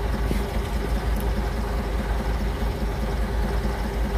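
Heavy diesel engine idling: a steady, low, even throb.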